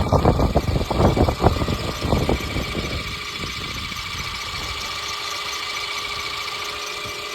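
Mercedes-Benz CLA250's 2.0-litre turbocharged four-cylinder engine running with an irregular clatter for about the first three seconds, then settling to a steady whine. The owner calls this a bad engine noise.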